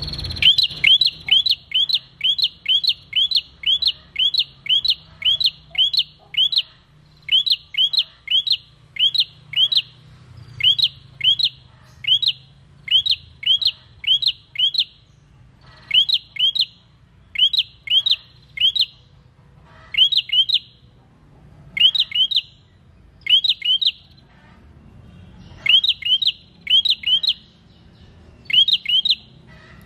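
Caged prenjak singing: sharp, loud chirps repeated quickly, about two to three a second, in runs broken by short pauses.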